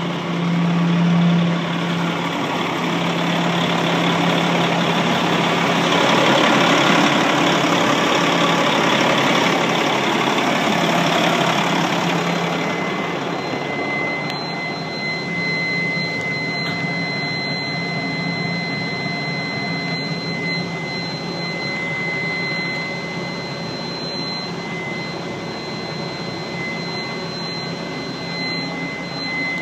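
2007 Condor garbage truck's engine idling steadily. About halfway through, a steady high-pitched tone comes in and holds.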